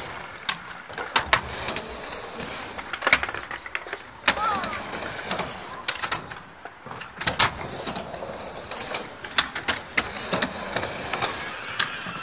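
Skateboard rolling back and forth on a half-pipe ramp: steady wheel noise broken by sharp clacks, several of them irregularly spaced, as the board's trucks and tail hit the ramp and its coping.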